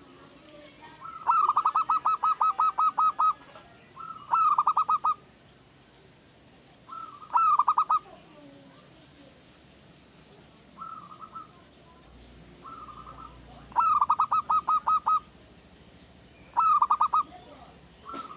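Zebra dove (perkutut) cooing its song: phrases of rapid, staccato coos, repeated several times with short pauses between them, the longest running about two seconds. Two of the phrases are fainter than the rest.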